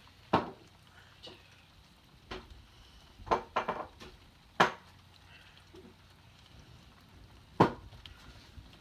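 Irregular sharp taps and knocks, a handful of them with a quick cluster of three about three and a half seconds in, over a faint steady hiss of rain.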